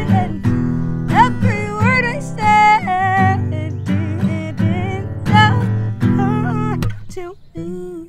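Acoustic guitar strummed live while a woman sings long, wavering notes with no clear words. The music drops away briefly near the end.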